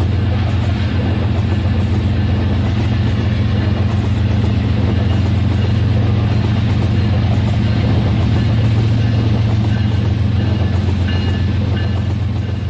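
Rail King toy train's small electric motor and gears running steadily as it rolls along its track: a steady buzzing hum with a faint, evenly repeating high tick.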